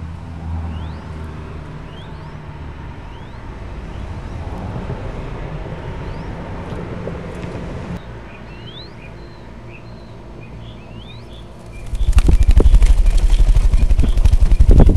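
Mourning dove squab flapping its wings hard right beside the microphone, a loud rapid fluttering that starts about twelve seconds in: the young bird's first wing exercise before fledging. Earlier, faint high chirps from other birds.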